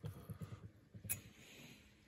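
Faint sharpening sounds from a Leatherman PST blade being worked on a sharpening stone: soft scraping strokes and light knocks, a sharp click about a second in, then fading away.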